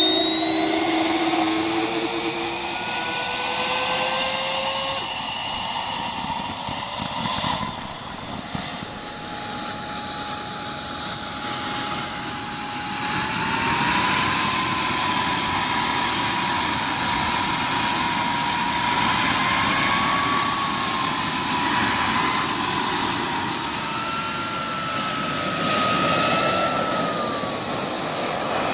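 JetCat P60 SE model jet turbine running with a loud, high whine over a constant rush of exhaust. The whine climbs steadily in pitch over the first eight seconds as the turbine spools up, then holds steady with a few small rises and dips in pitch.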